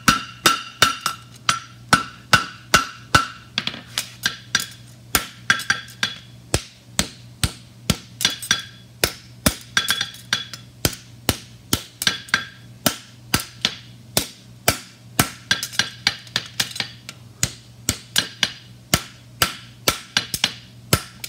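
Hand hammer striking a red-hot steel horseshoe on the anvil, shaping and cleaning up the corner of the shoe. Steady blows come about two to three a second, and many leave a short ringing tone. A steady low hum runs underneath.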